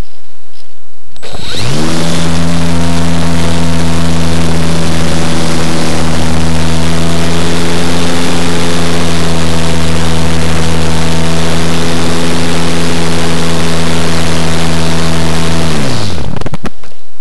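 Electric motor and propeller of an Easy Glider Pro RC motor glider, heard from a camera on board: the motor spins up quickly about a second in and runs at a steady pitch, then is cut near the end and winds down, leaving only rushing air.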